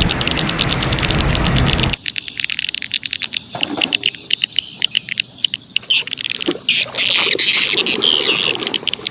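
A steady rushing noise cuts off suddenly about two seconds in. It leaves an outdoor chorus of insects chirping in many quick ticks, with birds calling high and bright in the second half.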